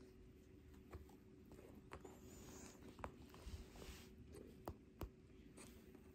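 Near silence: faint fabric rustling and a few soft, scattered clicks from kittens scrabbling and wrestling on a cloth-covered lap.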